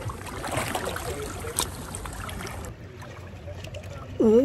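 Sea water sloshing and splashing around a person's legs as he lowers himself into the sea. Near the end he lets out a short exclamation.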